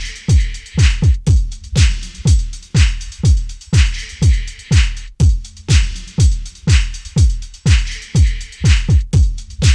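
Drum-machine dance track: a deep kick drum whose pitch drops after each hit, about two a second, under bright hissing hi-hat and cymbal hits, with no vocals.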